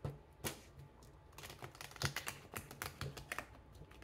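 A deck of tarot cards being shuffled by hand: a run of irregular clicks as the cards strike and slide against one another.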